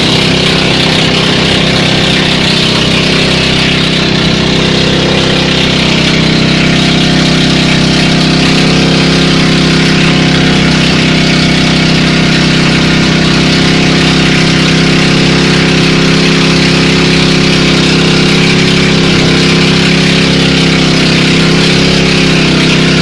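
Engine of a motorised outrigger boat (bangka) running steadily under way, loud and close, with a hiss of wind and water spray over it.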